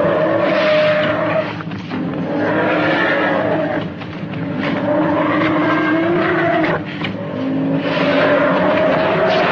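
Film dinosaur roars: long, screeching, pitched cries, about four in a row, each a couple of seconds long, whose pitch holds and then bends.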